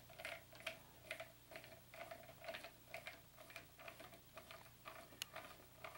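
Faint, steady clicking, about three clicks a second, as a hand screwdriver turns the bridge's mounting screws into the guitar body.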